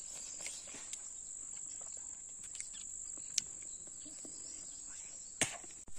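Steady high-pitched insect drone, holding one pitch, with a few faint clicks.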